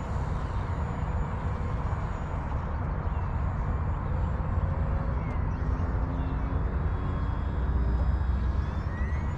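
Electric motor and propeller of an FMS Cessna 182 RC plane whining faintly in flight, the pitch shifting with the throttle and rising near the end, over a steady low rumble.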